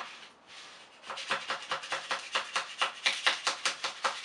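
Object-removal scraper tapping and scraping at the base of a 3D-printed plastic part on a 3D printer's build plate, in quick repeated strokes of about six a second that start about a second in. The print is firmly stuck to the plate and hard to work free.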